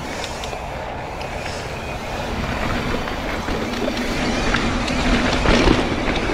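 Yeti SB130 mountain bike rolling fast down a dirt singletrack: tyre noise and wind on the microphone, with the bike rattling and knocking over bumps. It gets louder as speed builds, with sharper knocks in the second half.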